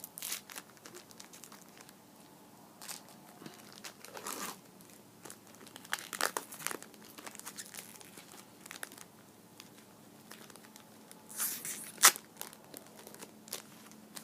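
A trading-card pack wrapper being torn open and crinkled by hand, in short bursts of crackling with pauses between, the sharpest tear about twelve seconds in.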